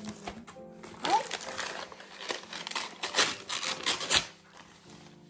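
Wrapping paper crinkling and rustling in a quick run of sharp crackles for about four seconds, over quiet background music that carries on alone near the end.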